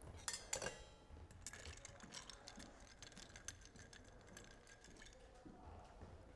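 Faint, quick ticks and clinks of ice against a glass, with a few sharper clicks about half a second in, as a built cocktail of vodka, orange juice and ice cubes is worked in its glass.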